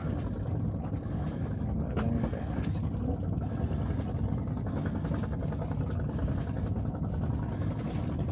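Steady low rumble of strong wind blowing across the microphone, with a few faint clicks.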